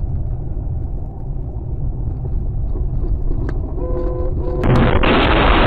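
Car driving on a snowy road heard from inside the cabin: a steady low rumble of engine and road noise. Near the end comes a brief steady tone, then a loud burst of harsh noise that lasts over a second.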